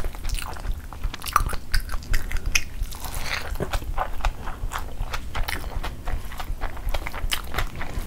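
Close-miked chewing of a mouthful of chicken biryani rice, with many quick wet clicks and crunches, while fingers squish and scoop the rice on the plate.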